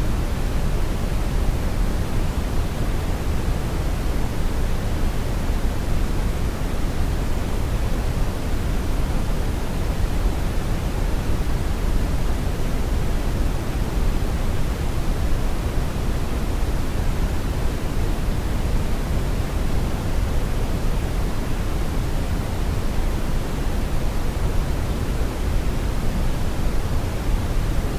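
Steady synthetic brown noise: an even, unchanging rumbling hiss weighted heavily toward the low end.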